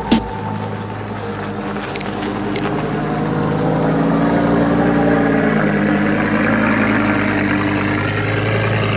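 Lamborghini Huracán's V10 engine running with a steady, low engine note that grows louder over the first few seconds and then holds.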